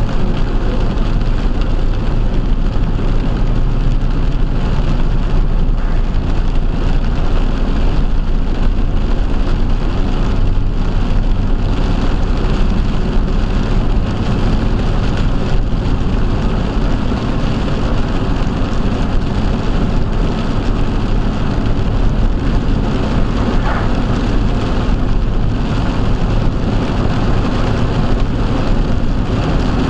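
Steady heavy rain on a vehicle, over a constant low rumble of road and engine noise.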